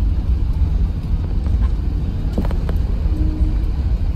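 Steady low rumble in the cabin of an Airbus A380 during its landing roll-out, spoilers raised as the jet slows on the runway. A few light clicks come about halfway through.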